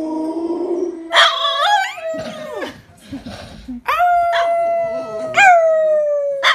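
Dogs howling: a bulldog gives a gliding howl, then a French bulldog holds a long, slowly falling howl with a quick upward yelp partway through.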